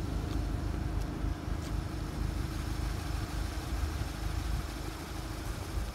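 Steady drone of a Class 66 diesel locomotive idling while its container freight train stands still at the crossing, held waiting for a signal.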